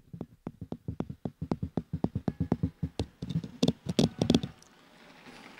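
Crowd applauding: separate hand claps that grow thicker and louder, then die away about four and a half seconds in.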